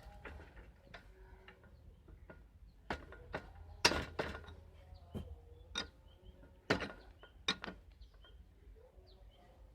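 Irregular metal clicks and knocks of a spanner and bicycle pedal axle being worked loose from the crank arm, a few sharp taps standing out about four and seven seconds in.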